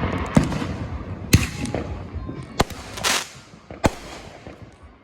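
Fireworks going off: a handful of sharp bangs about a second apart, with a burst of crackling around three seconds in, dying away near the end.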